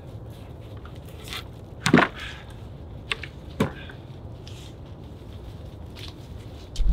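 Cut log rounds knocking against the load on a hand cart as they are loaded: a loud, sharp knock about two seconds in, a second knock about a second and a half later, and a low thump at the very end.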